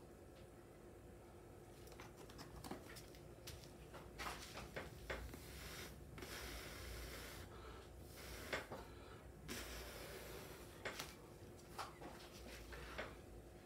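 A person blowing by mouth across wet acrylic paint on a canvas: a few faint, breathy blows of a second or so each in the middle, with small clicks and taps of handling around them.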